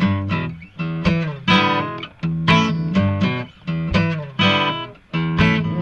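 Solo guitar playing a steady blues accompaniment riff, struck about twice a second, with no voice over it.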